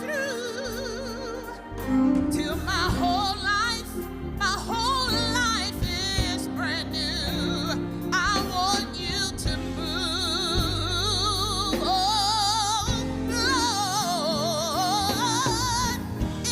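Gospel singing with strong vibrato over sustained instrumental accompaniment.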